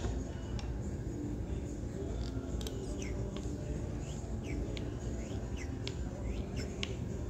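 Front brake master cylinder of a 2008 Harley-Davidson Fat Bob being pumped by hand to fill its bores with DOT 4 fluid: a string of short squeaks and a few light clicks from the piston and lever, over a steady low hum.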